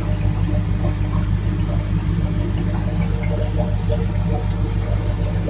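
Aerated water bubbling and gurgling in a fish holding tank, over a steady low hum.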